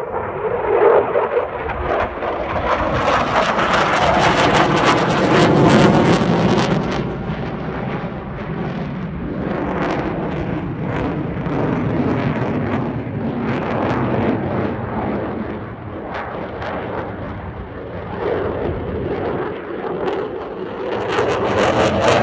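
Eurofighter Typhoon jet fighter's twin Eurojet EJ200 turbofans roaring loudly with a rough crackle as it flies past. The pitch falls over the first few seconds, and the sound swells and fades and then builds again near the end.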